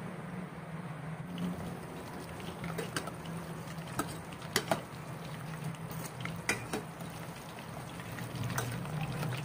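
Breaded chicken breasts sizzling in hot oil in a stainless steel pot, a steady bubbling hiss, with a few sharp clicks as metal tongs knock against the pot while the pieces are turned.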